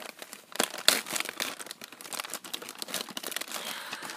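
Plastic zipper-seal bag and tissue paper crinkling and crackling as hands pull the bag open and dig through the tissue, with a sharper click about a second in.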